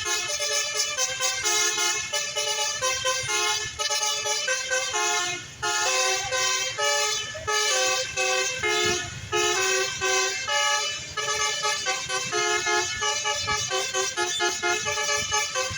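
Indonesian bus 'telolet' multi-tone horn playing a quick tune of short stepped notes, with brief pauses about five and nine seconds in.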